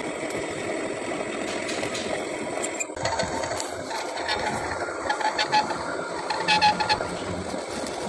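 Metal lathe running with a cutting tool grooving the steel where an excavator's hydraulic shaft meets its clevis. The sound is a steady mechanical hum that changes abruptly about three seconds in, then uneven scraping bursts with a short squeal in the second half.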